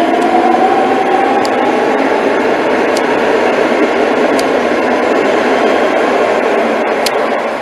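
Madrid Metro train running through an underground station as it pulls away: a steady rumble and hiss of wheels on the rails, with a motor whine rising in pitch as it speeds up early on, and a few sharp clicks.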